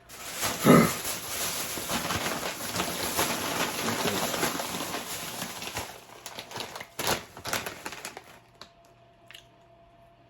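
Snack-chip bags crinkling and rustling as a hand rummages through a bag of them for about six seconds, then a few scattered crinkles and taps.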